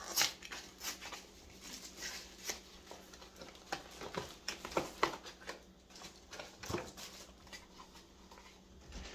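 A small cardboard box being handled and opened by hand: irregular taps, scrapes and paper rustles, with a sharper tap just after the start and another about five seconds in.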